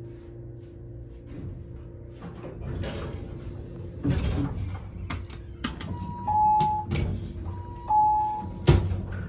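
Elevator car doors sliding open over a steady hum, followed by two electronic beeps, each a short higher tone dropping to a longer lower one. Scattered clicks are followed by a sharp knock near the end, the loudest sound.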